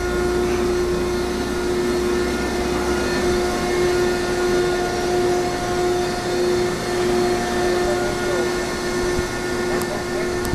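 Baler running steadily, a constant machine hum with a steady whine in it; a second, higher tone joins about three seconds in and fades out a couple of seconds before the end.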